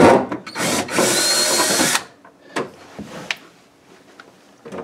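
Cordless drill fitted with a quarter-inch nut driver, spinning a screw out of a refrigerator freezer's back plate. It runs with a steady whine for about a second and a half, then stops, followed by a few faint clicks.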